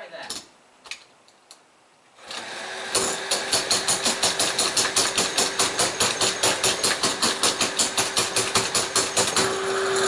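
Power drill boring into a Defiant deadbolt, with a fast, even pulsing chatter of about six strokes a second as the bit works through the lock. A few light knocks come first, the drill starts about two seconds in, and near the end the pulsing gives way to steady drilling.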